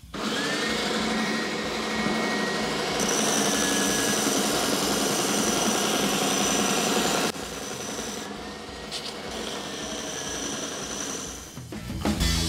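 Triton TSPST450 oscillating belt sander running, with a wooden guitar body pressed against the sanding belt. The sound grows louder and brighter for about four seconds while the wood is being sanded, then eases back to the machine running with a thin whine.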